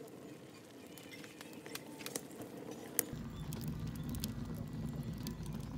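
Split firewood burning in a homemade wood stove's firebox, crackling with scattered sharp pops and one louder pop about three seconds in. A steady low rumble joins at that point and runs on.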